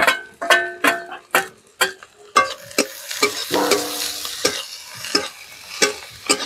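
Metal spatula scraping and clanking against a kadai while stirring chopped onion and green capsicum frying in oil, with the pan ringing at times. The sizzle of the frying swells about two seconds in.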